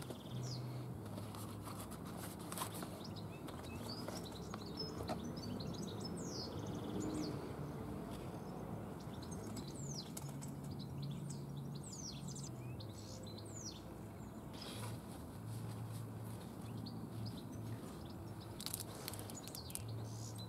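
Wild birds chirping, a scatter of short high sweeping chirps, over a faint low hum. A few brief rustles of the cardboard box and plastic pad bag being handled.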